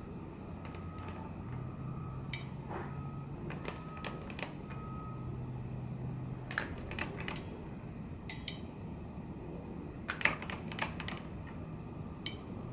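Irregular small metallic clicks and ticks from a circular sock machine's latch needles as yarn is laid into the needle hooks by hand and the crank is turned a little at a time. A faint steady low hum runs underneath.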